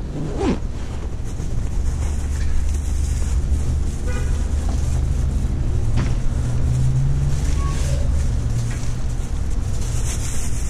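A vehicle engine running, a steady low rumble that grows a little louder in the middle.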